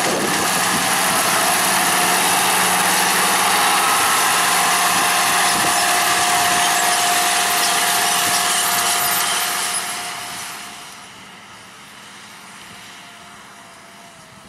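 MTZ 1221 tractor's diesel engine running steadily as it pulls a Monosem NG3+ corn planter through the field, with a steady high whine over the engine noise. The sound gets much quieter about ten seconds in.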